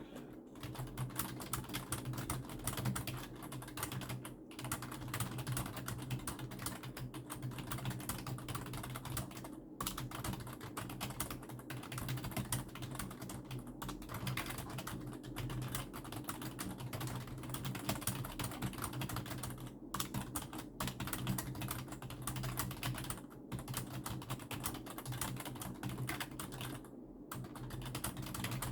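Fast, continuous typing on a Logitech K120 rubber-dome keyboard, with a few brief pauses. A steady low hum runs underneath.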